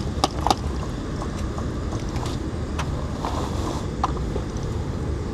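Airsoft guns firing: three quick sharp clicks at the start, then single clicks every second or so. A steady low rumble runs underneath.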